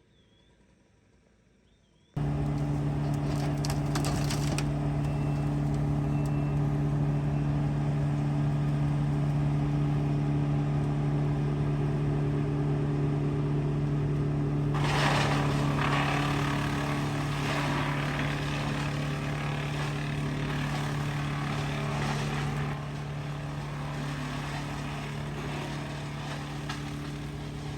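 Skid steer engine running at a steady speed, cutting in abruptly about two seconds in after near silence. A louder, noisier stretch comes near the middle, and the level drops slightly about three-quarters through.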